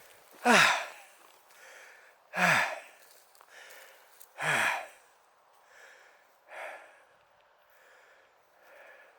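A person's heavy breathing: three loud voiced sighing exhalations about two seconds apart, each falling in pitch, with quieter breaths between them that fade later on.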